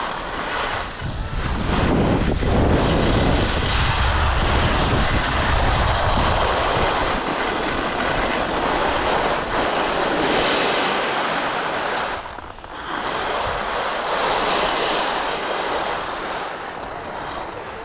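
Skis side-slipping down a snow slope, a loud continuous scraping hiss, with wind buffeting the microphone in low rumbles for a few seconds early on. The scraping eases briefly about twelve seconds in, then picks up again.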